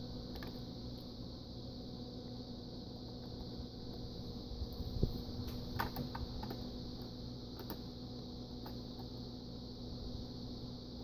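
A few light clicks and taps, bunched around the middle, from a screwdriver touching the contacts of a self-balancing scooter's circuit board, over a steady background hum.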